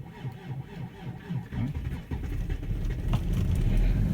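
Diesel car engine cranking over on the starter in a slow, even rhythm, then catching about a second and a half in and running unevenly before settling into a steadier, louder run. It is a hard cold start at about −28 °C after two days standing, with the glow plugs preheated.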